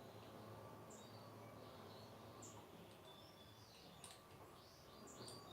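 Near silence with faint, scattered bird chirps in the background.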